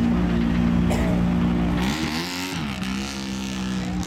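Big engine of a smoking mega mud truck held at high revs. About two seconds in, the revs sag and climb back, with a burst of hissing rush.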